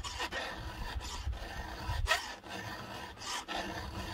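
Round chainsaw file worked by hand across the cutters of a saw chain: several separate filing strokes, each cutting on the pull, the loudest about two seconds in.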